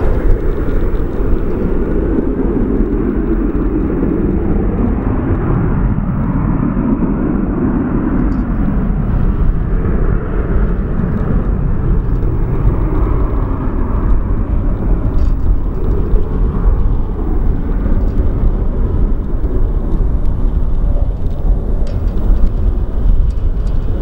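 Jet engines of a twin-engine airliner rolling down the runway: a loud, steady rumble with a hiss above it.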